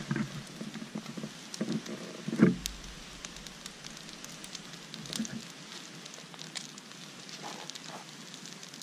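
Small kindling fire of birch bark and dry grass crackling with scattered light snaps as it catches. A few dull thumps in the first couple of seconds.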